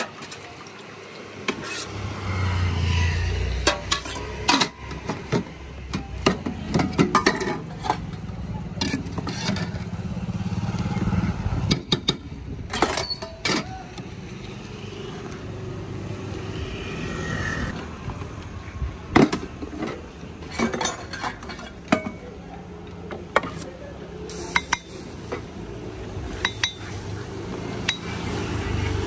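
Stainless steel pots, lids, plates and a ladle clinking and knocking again and again as food is served at a street dosa cart. Passing traffic rumbles underneath, swelling and fading a few times.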